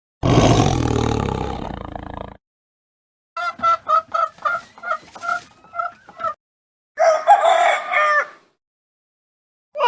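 Recorded animal calls played one after another with short silences between them: first a loud, low-pitched call lasting about two seconds, then a hen clucking about eight times, then a rooster crowing once.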